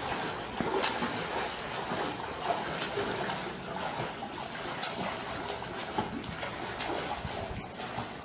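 Swimming-pool water splashing and trickling as a swimmer moves through it, under a steady rush of gusty wind ahead of a dust storm.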